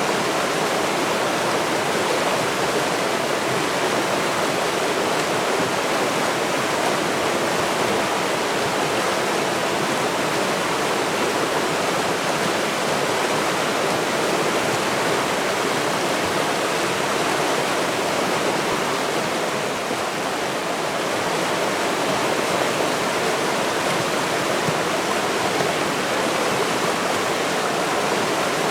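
River water flowing, a steady even rush with no other sounds.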